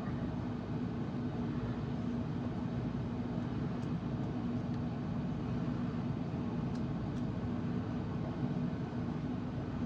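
Steady hum of a running appliance motor, with one low steady tone over an even noise and a few faint ticks.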